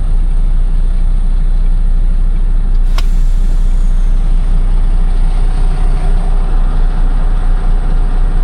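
A truck's diesel engine idling steadily with a deep, even rumble. A single sharp click about three seconds in.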